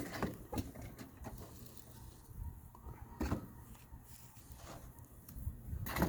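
A few light knocks and clicks of things being handled, scattered a second or more apart, over a low background rumble.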